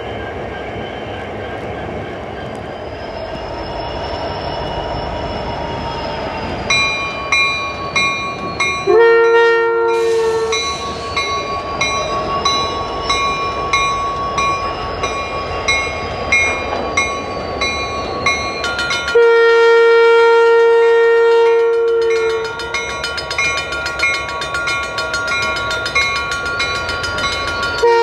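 Diesel freight locomotive horn blowing over the noise of the moving train: a short blast about nine seconds in, a longer one about nineteen seconds in, and another starting at the very end. A fast, even repeated ticking runs underneath from about a quarter of the way in.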